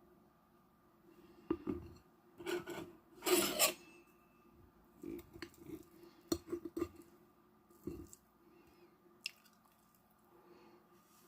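Kitchen handling sounds: scattered rustling and scraping with light clicks of tableware, the loudest rustle about three and a half seconds in.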